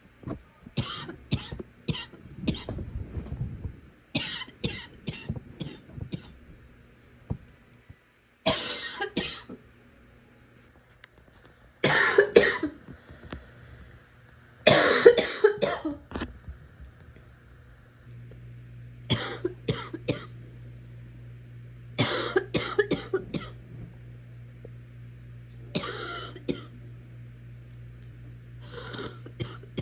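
A girl coughing in repeated fits, each a quick run of several coughs, with pauses of a second or more between fits; the longest and loudest fits come about halfway through.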